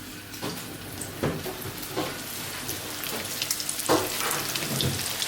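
Breaded schnitzel frying in oil in a pan: a steady crackling sizzle, with a few light knocks of a utensil against the pan.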